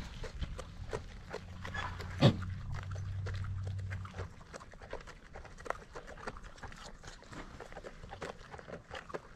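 Farm animals moving about close by, with many small clicks and shuffles and one short, sharp call falling in pitch about two seconds in. A low steady hum runs under it for the first few seconds.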